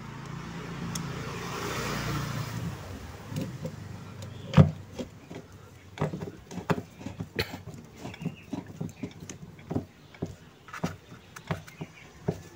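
A long screwdriver working a screw at a washing machine gearbox mounting, metal tool against metal and plastic: a sharp knock about four and a half seconds in, then a string of irregular clicks and taps. Before that, a rushing noise swells and fades over the first few seconds.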